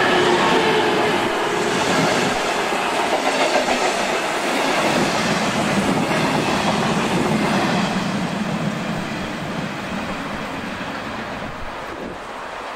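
A diesel-hauled passenger train passing close by: the heavy diesel locomotive's engine at the very start, then the coaches' wheels running over the rails, the noise fading steadily as the train moves away.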